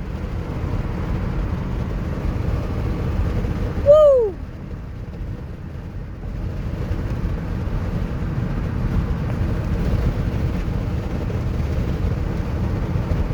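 Steady low road and engine rumble of a moving car, heard from inside the cabin. It dips briefly about five seconds in and then builds back up.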